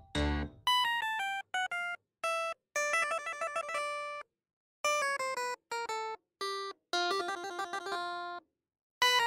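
Background music: a melody of short, bright keyboard notes played in quick phrases, with brief silent gaps between the phrases.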